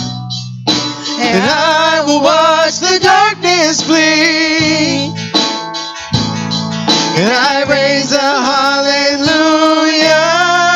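Live worship band music: singers carry the melody in long, gliding runs over guitar and a steady low accompaniment.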